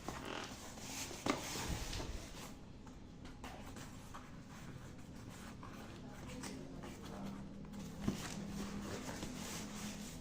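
Light handling sounds of a rice cooker being unboxed: rustling of packaging with scattered clicks and a couple of sharper knocks, about a second in and again near the end.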